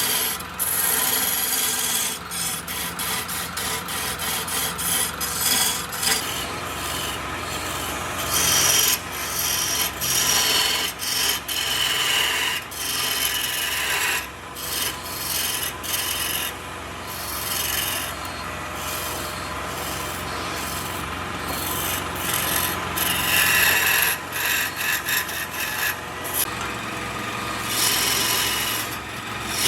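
Wood spinning on a wood lathe with a turning tool or abrasive held against it, giving a continuous scraping hiss broken by many brief gaps, over a steady low hum.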